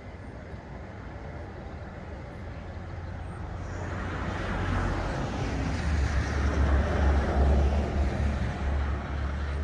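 Road traffic: vehicles passing on a highway, their tyre and engine noise growing steadily louder and peaking about six to eight seconds in, with a heavy low rumble.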